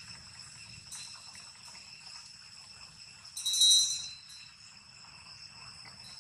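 Steady high-pitched insect drone from the surrounding trees, with a brief, much louder shrill burst lasting under a second a little past halfway.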